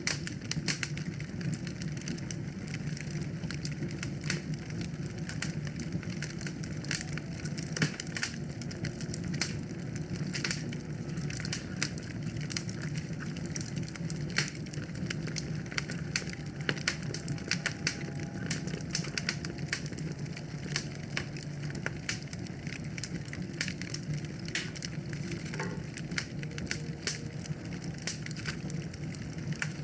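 Wood fire in a fireplace crackling, with dense irregular pops and snaps over a steady low rumble of burning.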